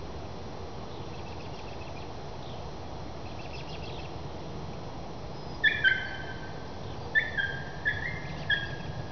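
A beagle giving voice as she trails a rabbit: about six short, high yelps, each dropping in pitch, over roughly three seconds starting a little past halfway.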